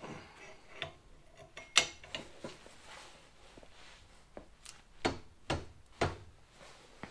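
Scattered sharp metal clicks and clunks from a long wrench heaved against a Supra limited-slip differential on a breakaway test. The re-shimmed clutch packs hold very tight, giving only in jerks.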